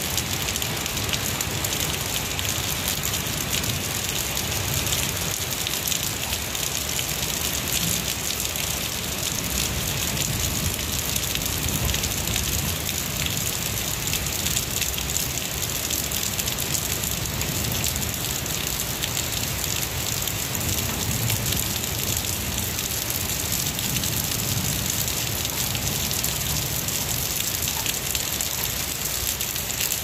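Heavy rain falling steadily on tree foliage, an even, unbroken hiss of drops.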